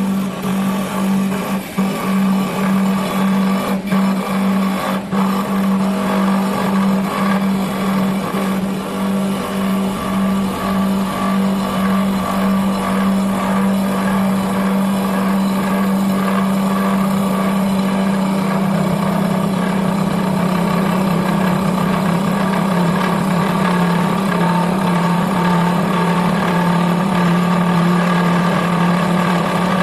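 CT 1516 double-axis CNC wood turning lathe running, with a loud, steady motor hum and a few sharp clicks in the first five seconds.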